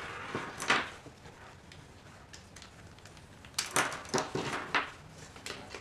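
Handling noise from a Baofeng UV-5R handheld radio and its earpiece cable being moved on a wooden desk. There is a soft rustle at the start, then a quick cluster of light plastic clicks and knocks about three and a half to five seconds in.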